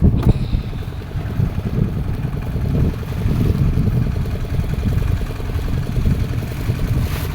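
Fishing boat's engine running steadily, a low, even throb.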